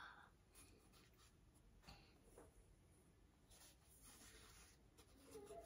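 Near silence, with faint rustling and rubbing as a perfume bottle is handled in a satin-lined cardboard gift box, and a soft tick about two seconds in.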